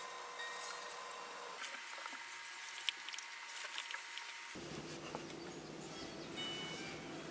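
Faint rustling of clothes and small light clicks of hangers being handled at a clothes rack.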